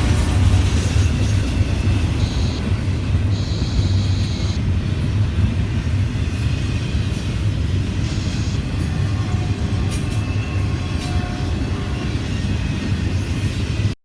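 Norfolk Southern train rolling by: a steady, loud low rumble of the locomotive and cars on the rails, with brief high wheel squeals a few times.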